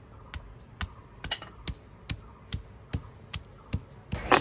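Stone pestle (nora) tapping a piece of ginger on a flat stone grinding slab (shil), about two sharp knocks a second as the ginger is crushed. Near the end a louder scraping starts as the pestle begins grinding it into paste.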